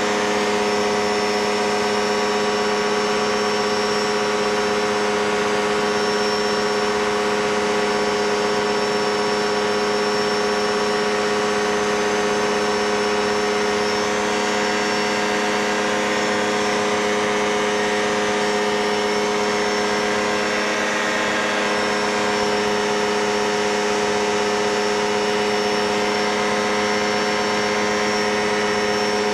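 Small single-engine propeller plane's engine and two-blade propeller in level cruise, an unchanging drone of steady tones over a hiss, heard from the cockpit.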